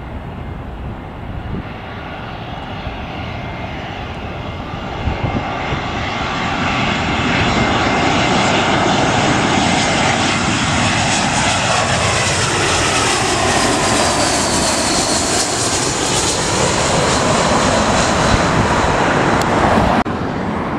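Airbus A320's twin IAE V2500 turbofans on final approach, passing low overhead. The engine noise builds over the first several seconds and then holds loud, with whining tones that slide down in pitch as the jet goes by. The sound cuts off abruptly near the end.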